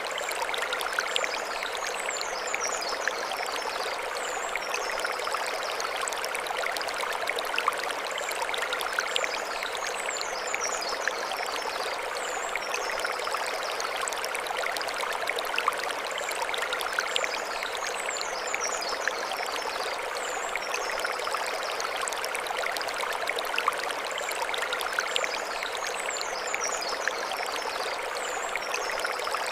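Mountain stream flowing over stones in a steady, even rush. Short high bird-song phrases come in about every eight seconds above it.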